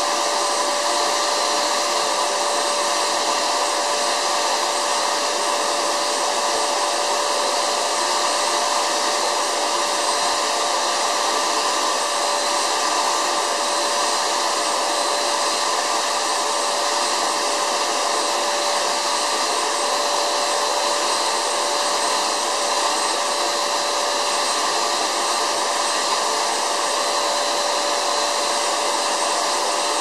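White vacuum cleaner running steadily with its nozzle pulling at folded futon bedding: a comforter and sheets. An unchanging motor whine with a fixed tone over rushing air.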